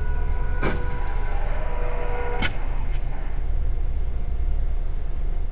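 A vehicle crash heard from inside a car: two sharp bangs almost two seconds apart over a steady low engine and road rumble, with a steady high tone sounding between the bangs.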